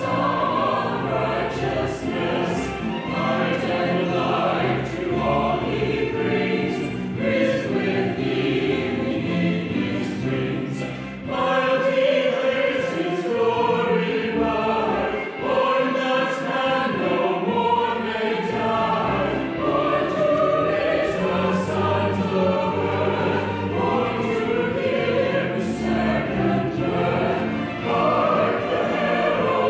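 A choir singing a hymn, many voices together carrying a steady melody, with sung words heard throughout.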